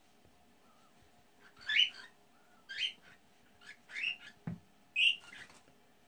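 Yellow-naped Amazon parrot giving about five short, high-pitched calls that rise in pitch, spaced about a second apart, as part of its mimicry of a woman's orgasm moans.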